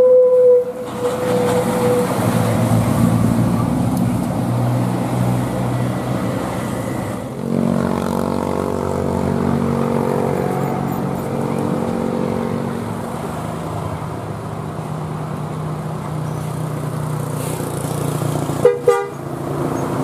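Tour coaches passing close by with their diesel engines running. A bus horn holds one steady note as the first coach goes past and fades out about two seconds in. The engine hum grows louder at about seven and a half seconds as the next coach climbs the bend, and two short horn toots sound just before the end.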